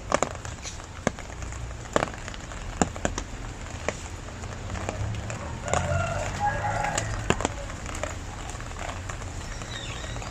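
Rain falling steadily, with heavy drops tapping irregularly on a hard surface as sharp separate knocks. A bird calls briefly about halfway through.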